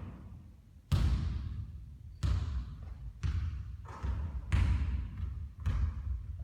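Basketball thudding on a court, six or seven hard bounces at uneven spacing, roughly a second apart, each ringing out briefly.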